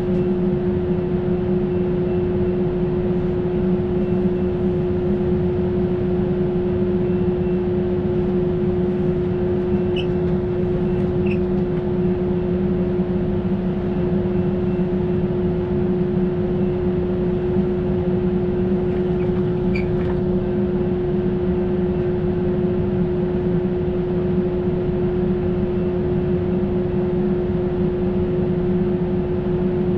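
Steady mechanical hum with a constant low tone, heard inside a stopped passenger rail car. A couple of faint high chirps come about ten and twenty seconds in.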